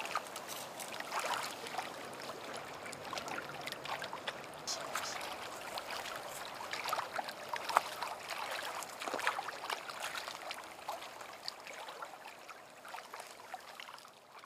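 Water trickling and lapping, a steady wash full of small irregular splashes, fading out near the end.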